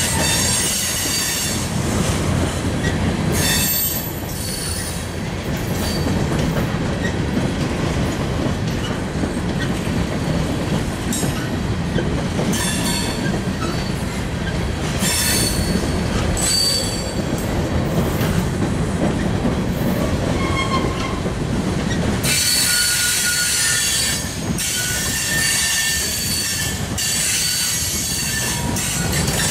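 Freight train of covered hopper cars rolling past, with a steady low rumble of steel wheels on rail and clicking over the rail joints. High-pitched metal squealing comes and goes, heaviest over the last quarter.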